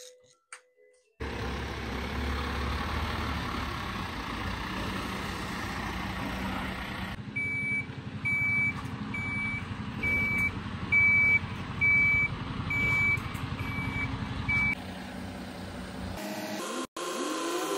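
Tow truck's engine running, with about ten evenly spaced warning beeps, roughly one a second, in the middle. Near the end a steady whine comes in as the truck's loading crane hoists the car.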